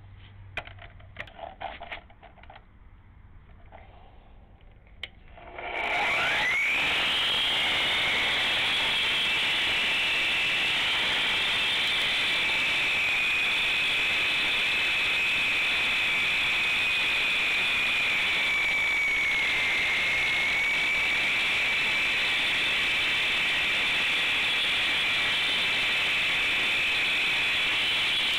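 A few faint clicks, then about six seconds in a handheld circular saw starts with a quickly rising whine and runs steadily at a high pitch while it cuts concrete. Past the middle its pitch dips briefly as the blade takes more load.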